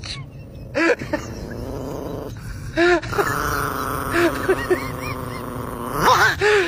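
A dog vocalising: a long, drawn-out moan with short rising-and-falling whine notes over it, coming again several times.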